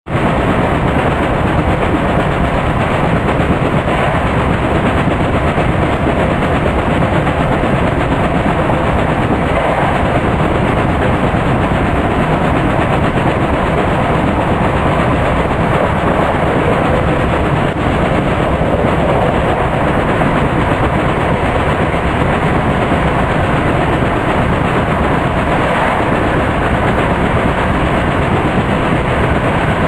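Steady interior running noise of a Class 165 diesel multiple unit: a continuous rumble of wheels on rail heard from inside the passenger saloon.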